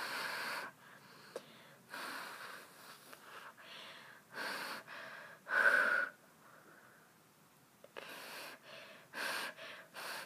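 A person breathing audibly in and out, in separate short, breathy puffs every second or two, with one louder breath about halfway through.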